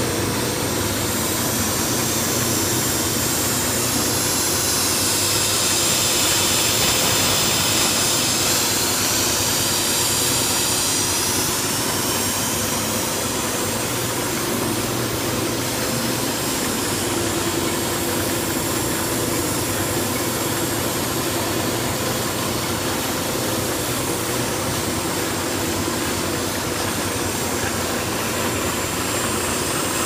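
Steady running din of a high-pressure air-conditioning hose peeling and printing line: electric gear motors, belt haul-off and spinning peeling heads. A high whine swells and fades again within the first third.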